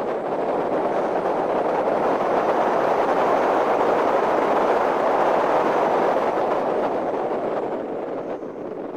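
Hyundai Genesis Coupe on the move: a steady rush of wind and road noise with no clear engine note, swelling through the middle and easing near the end.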